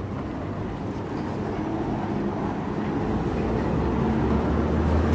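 A motor vehicle approaching, its low engine hum growing steadily louder toward the end.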